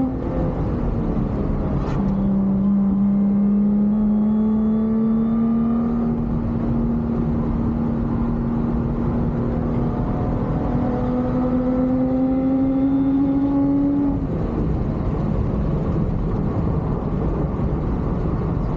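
Lotus Exige's supercharged V6 at full throttle, heard inside the cabin. About two seconds in an upshift drops the pitch, then the engine note climbs slowly and steadily for some twelve seconds. Near the end the engine tone falls away, leaving road and wind roar.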